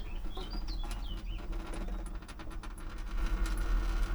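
A small bird chirping a few short notes in the first second or so, over light clicks and a steady low hum.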